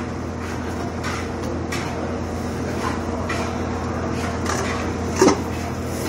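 Stainless steel dome lid clanking once as it is lifted off a flat-top griddle, about five seconds in, over a steady kitchen machine hum with a few faint metal clicks of tongs.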